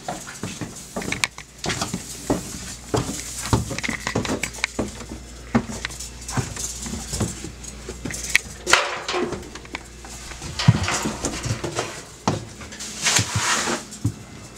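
Irregular footsteps and knocks as people walk through the house's rooms, with two brief stretches of rustling noise about nine and thirteen seconds in.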